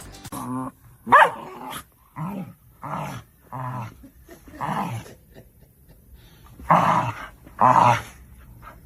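A dog vocalizing in an irregular series of about eight short pitched calls, the loudest about a second in and two more near the end.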